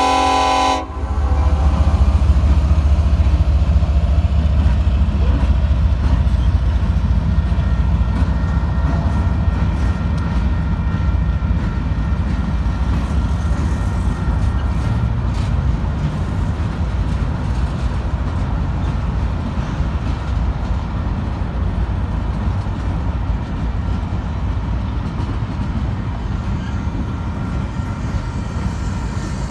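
The tail of a Union Pacific freight train's air horn cuts off about a second in. Then the diesel locomotives rumble past as the train pulls out of a siding, followed by freight cars rolling over the rails.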